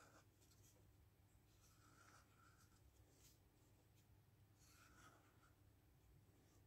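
Black felt-tip marker drawing curls on paper: faint scratchy pen strokes in two short runs, about two seconds and five seconds in.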